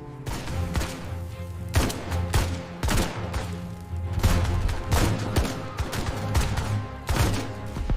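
Gunfire: a string of irregular shots, roughly a dozen, over a dark music score with low sustained tones.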